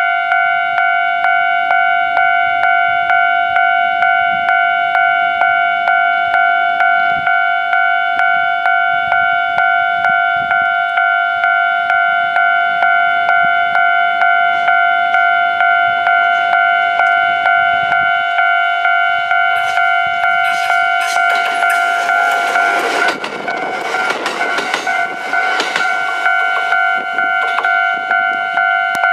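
Japanese level-crossing warning bell ringing steadily at about two strokes a second. From about 20 seconds in, a Kintetsu 1259-series electric train runs over the crossing with a rush of wheel-and-rail noise, loudest around 24 seconds, while the bell keeps ringing.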